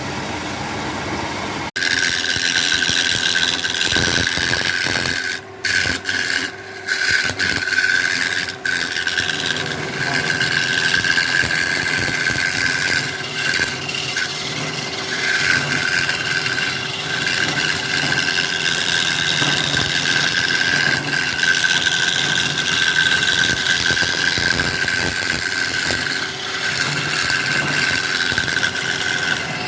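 Wood lathe running, with a tool scraping against the spinning wood in a continuous rasping hiss over a steady motor whine. The scraping breaks off briefly a few times in the first ten seconds.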